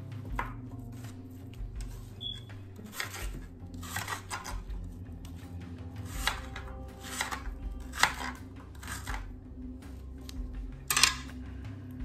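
Knife cutting an onion on a cutting board: separate, irregular knocks of the blade striking the board, roughly one a second, the loudest near the end.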